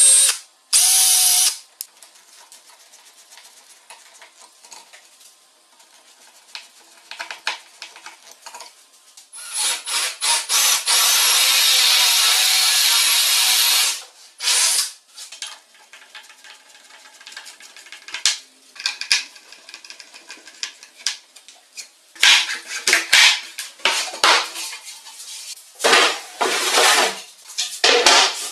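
Cordless drill driving screws into plywood to fix concealed cabinet hinges, in short runs with one longer steady run of about four seconds near the middle. Between runs, quieter knocking and handling of the wooden parts, with a flurry of clattering near the end.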